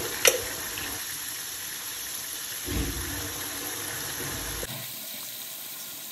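Curry gravy simmering in a steel karahi, a steady sizzling hiss. A metal spoon clinks against the pan right at the start, and there is a soft thump about three seconds in.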